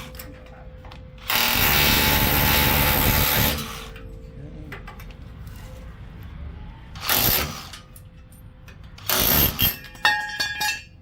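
Power hammer fitted with a small jackhammer chisel bit hammering at a steel frame rivet in bursts: a long run of about two seconds, then shorter bursts about halfway and near the end. The last, choppier bursts carry a metallic ringing as the rivet is knocked off.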